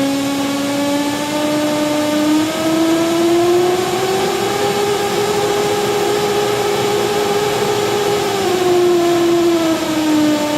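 Analog modular synthesizer oscillator's sawtooth output, with white noise fed into its exponential frequency input: a steady pitched tone smeared with hiss. The pitch glides up about a third of the way in, holds, then slides back down near the end.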